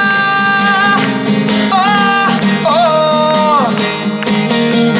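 Pop song with strummed acoustic guitar keeping a steady rhythm under a voice holding long sustained notes between sung lines.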